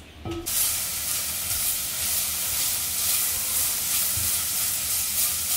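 Diced sofrito vegetables sizzling in an enamelled cast-iron pot as they are stirred with a spatula, a steady frying hiss that starts about half a second in.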